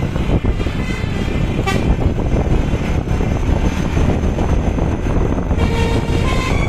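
A heavy, loud low noise from a bus and road traffic runs throughout. About five and a half seconds in, the bus's telolet musical air horn starts playing a short tune of stepped notes.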